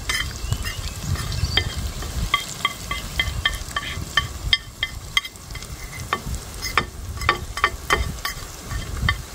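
A metal spoon clinking and scraping on a ceramic plate as ground spices are knocked off it, about three light clinks a second with a short pause midway, over the steady sizzle of onion-tomato masala frying in the pot.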